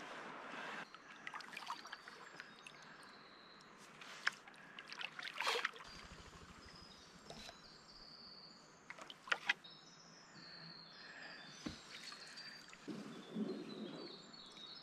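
Canoe paddling: quiet water dripping and trickling off a wooden paddle blade with each stroke, with a few sharp knocks of the paddle against the canoe.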